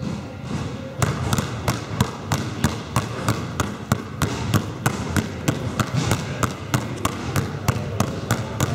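Two basketballs dribbled at once on a wooden sports-hall floor, starting about a second in with quick, regular bounces, about three a second.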